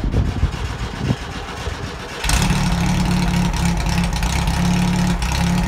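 Sand rail's air-cooled VW engine being cranked, catching about two seconds in and then running steadily at a fast idle.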